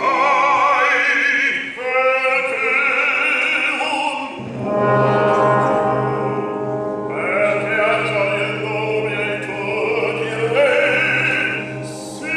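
Operatic bass voice singing with wide vibrato over an orchestra, in three phrases with short breaks. A low held note in the orchestra comes in about four seconds in and carries on under the voice.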